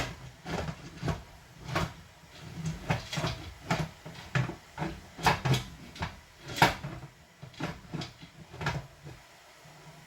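Pressure canner lid being worked onto the pot: repeated irregular clunks and clicks of metal on metal as the lid is twisted and set down, trying to line up its arrow with the pot's to lock it.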